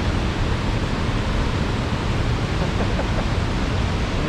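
Steady rush of fast-flowing water, a loud even noise with no breaks.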